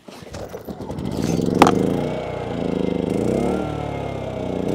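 Generac portable inverter generator being started: a brief clatter, then its small engine catches with a sharp crack and runs, its speed surging up and down.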